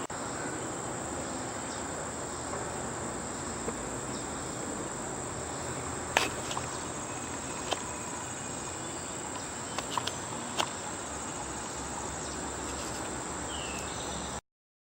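Insects trilling steadily in one continuous high-pitched tone over a low background hiss. A few light clicks and knocks come about six, eight and ten seconds in, and the sound cuts off abruptly near the end.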